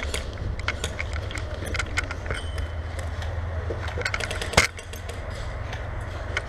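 Irregular clicking and rattling from an airsoft player's gear on the move, over a steady low rumble, with one loud sharp knock about four and a half seconds in.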